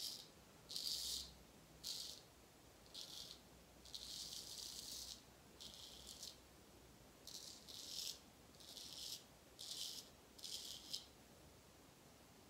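Straight razor scraping through lather and beard stubble on the cheek: about ten short, scratchy strokes, one of them longer, with short pauses between.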